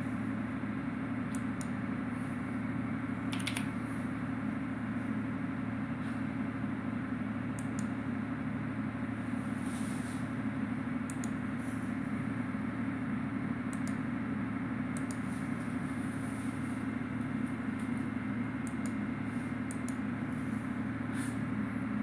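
Steady low machine hum with a few faint clicks now and then.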